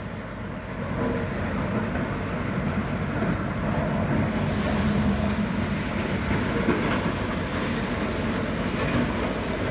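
A steady, loud mechanical rumble, with a faint hum rising out of it about four to five seconds in.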